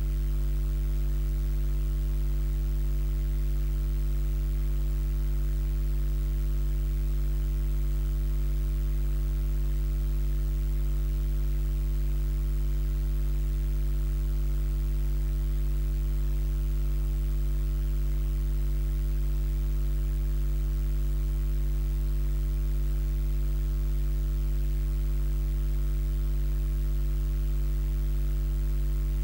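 Steady low electrical hum with a buzz, unchanging.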